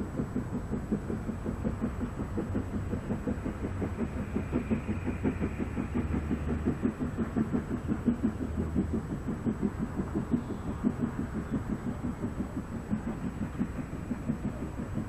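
Steam locomotive working a train, its exhaust chuffing in a quick, steady rhythm.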